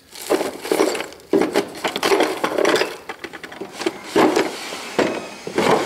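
Metal gears and parts in plastic bags rattling, clinking and rustling in a wooden drawer as a hand rummages through them, in a run of irregular clatters and knocks.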